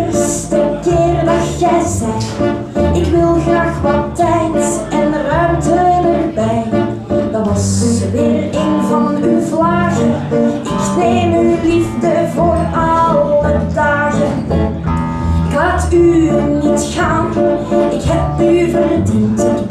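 A woman singing with an acoustic guitar strummed beneath her voice and a double bass playing a low bass line.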